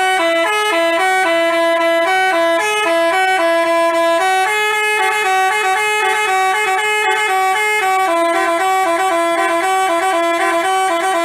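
Telolet basuri horn playing a melody: a fast run of loud, clear horn notes stepping up and down in pitch, stopping abruptly near the end.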